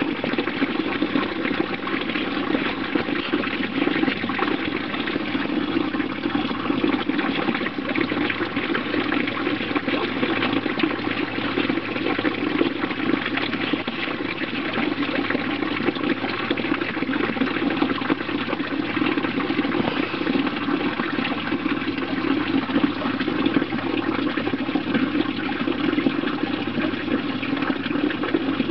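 Steady rush of running water, even and unbroken throughout.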